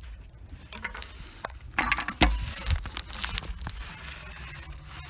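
Handling noise from a large firework shell being lowered on its fuse into a mortar tube: irregular scraping, rustling and clicks, with a dull knock about two seconds in.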